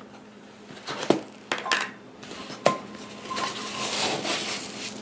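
Kitchen containers and utensils being handled on a countertop: a few separate clinks and knocks, then a soft rustling.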